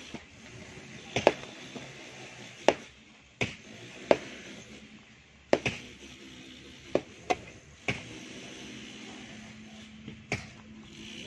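Metal shovels and hoes striking and scraping stony soil while digging: about ten sharp clinks at uneven intervals, some with a short ring.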